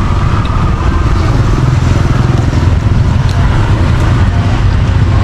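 City street traffic: a steady rumble of motorbikes and cars passing close by.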